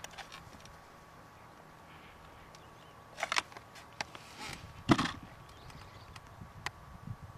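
Handling noise of a GAMO Socom 1250 break-barrel spring-piston air rifle being closed after cocking and loading and brought onto its shooting rest: a few sharp clicks about three seconds in, then a louder clack with a low knock near five seconds.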